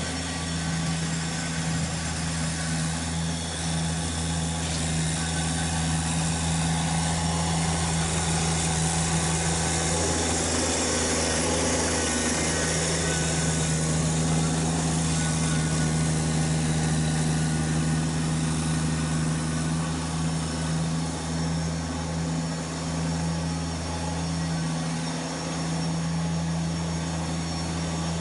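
Kubota BX1870 sub-compact tractor's three-cylinder diesel engine running steadily while plowing snow with its front blade. It gets a little louder in the middle as the tractor comes close, then eases off as it moves away.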